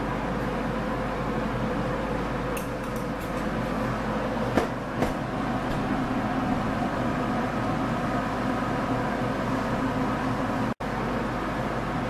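Haier window air conditioner, boxed into a sheet-metal duct plenum, running steadily: an even compressor and fan hum with a rush of air. Two light knocks come about four and a half and five seconds in, and the sound cuts out for an instant near the end.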